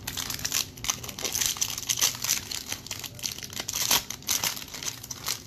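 Foil wrapper of a Topps baseball card jumbo pack crinkling and crackling as it is handled and torn open by hand, a dense run of sharp rustles.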